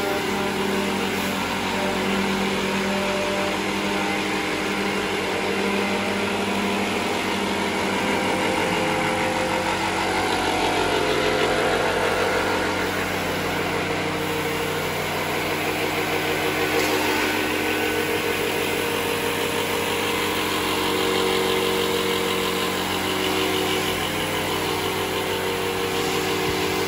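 Electric woodworking power tools running: an orbital sander working a wooden door panel and a table saw cutting boards, a steady mix of motor hum and whine over a noisy hiss. The pitch pattern shifts about nine seconds in and again near halfway.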